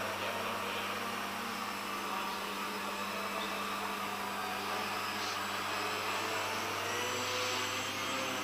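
Whirring of a Leadfeather SkyCart's four small motors and propellers in flight, with a faint high whine that rises and falls a little as the throttle changes, over a steady low hum.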